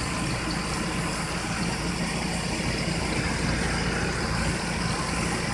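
ZENY mini twin-tub washing machine running a rinse cycle: a steady motor hum with rinse water churning in the wash tub.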